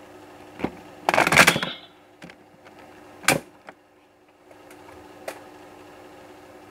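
Hard plastic clicking and clatter as a Wonder Ride Book is handled and the DX Tri-Cerberus Wonder Ride Book is snapped into the slot on the DX Raimeiken Ikazuchi toy sword's sheath. There is a short burst of clatter about a second in, a sharp click a little after three seconds, and a few fainter ticks.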